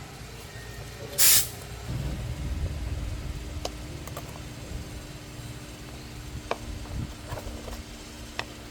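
A short, loud hiss about a second in, then a few scattered light clicks over a steady low hum.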